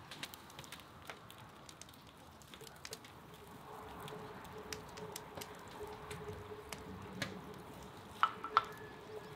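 Meat broth boiling hard in a large pot, with bubbles popping in many small irregular clicks while a wooden spoon skims off the foam. A faint steady tone joins a few seconds in, and two sharp knocks near the end are the loudest sounds.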